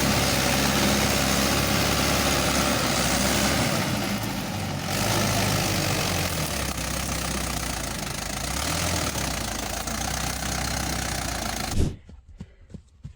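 Tractor engine running steadily, with a dense hiss over a low engine rumble. It stops abruptly about twelve seconds in, leaving faint, scattered sounds.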